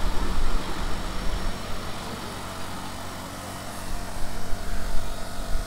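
Ride-on miniature railway train running along its track: a low, uneven rumble of the wheels on the rails that eases off for a couple of seconds mid-way and then picks up again.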